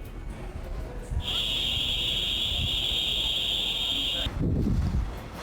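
A steady high-pitched buzzing tone lasting about three seconds, starting and stopping abruptly, followed by a short low rumbling burst.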